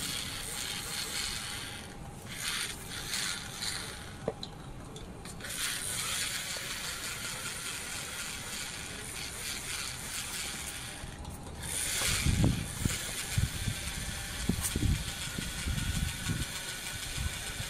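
Fire crackling and hissing as a plastic toy RC car burns, with irregular low thumps from about twelve seconds in.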